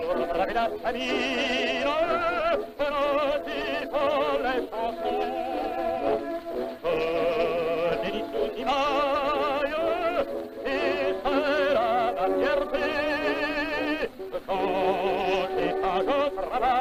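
A man singing with heavy vibrato over instrumental accompaniment, an early recording with little treble.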